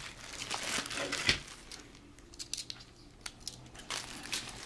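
A thin, wrap-like plastic bag of model kit parts crinkling and crackling as it is cut open and pulled apart, with a sharp thump about a second in.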